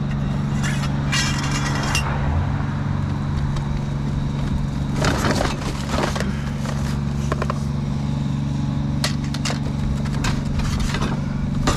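A vehicle engine idling steadily, with rattles and clanks of scrap metal being handled and moved: a clatter about a second in, more around five to six seconds, and again from about nine to eleven seconds.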